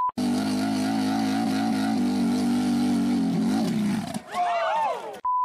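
Small dirt bike engine held at high revs in a burnout, its rear tyre spinning against a wooden block, then a swing in engine pitch as the bike lurches up. Shouting follows, then a steady beep tone near the end.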